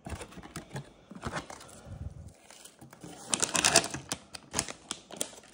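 Packaging being handled: a plastic anti-static bag crinkling and a cardboard box rustling, in irregular rustles and clicks. The loudest burst comes about three and a half seconds in.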